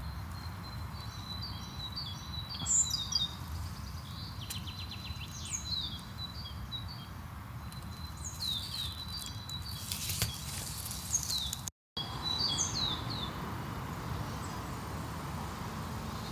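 Songbirds singing: many short chirps and a quick trill over a low, steady rumble. The sound drops out for a moment near the end.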